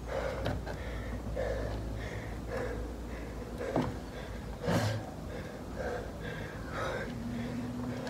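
Elliptical trainer in steady use, a rhythmic swishing about once a second from the strides, with two sharp knocks a little past the middle.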